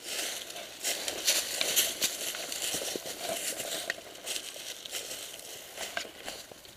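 Dry leaves and brush rustling and crackling close to the microphone as a player moves through them, with the loudest crackling between about one and two seconds in.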